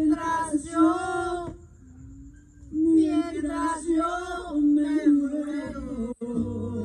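Several voices singing a song together, largely without accompaniment: long held, wavering notes in two phrases with a pause of about a second between them.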